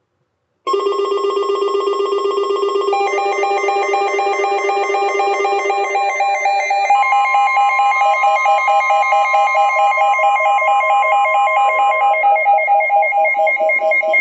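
Several phones sounding emergency alert tones at once, a snow squall warning coming in. Loud, rapidly pulsing electronic tones overlap one another, with further tones joining about two and six seconds in.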